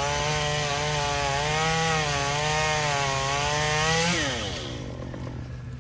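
Chainsaw revved to full throttle and cutting into pecan wood for about four seconds, its pitch wavering slightly under load. It then drops back to idle.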